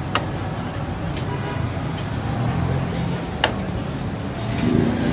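Steady street traffic rumble, with a couple of short sharp clicks, one at the start and one about three and a half seconds in.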